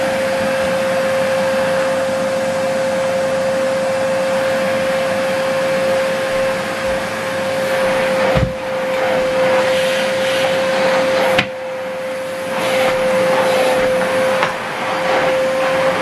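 Hoover Whirlwind bagless cylinder vacuum cleaner running at a steady pitch with a high motor whine over the rush of air, its floor head being pushed over carpet. There is a knock about eight seconds in and a sharp click about three seconds later.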